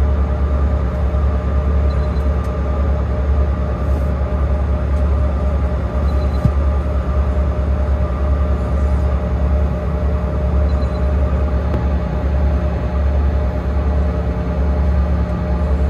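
Steady, loud low drone with a few steady hum tones, heard inside an airliner's cabin on the ground during de-icing.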